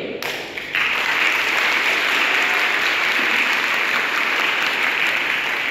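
Audience applauding, breaking out suddenly under a second in and continuing steadily.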